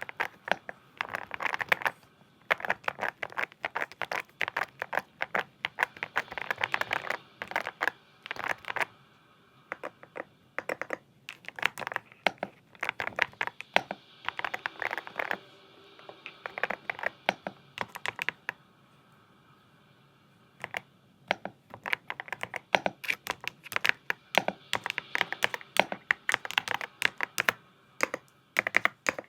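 Typing on a Yunzii Cake mechanical keyboard: fast runs of key clacks, broken by two short pauses about ten and twenty seconds in.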